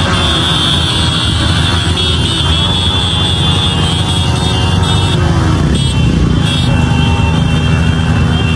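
Motorcycle engines running steadily and loudly in close traffic.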